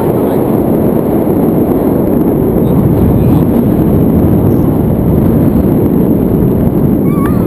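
Loud, steady wind noise: the airflow of a paraglider in flight buffeting an action camera's microphone, mostly a low, even rush.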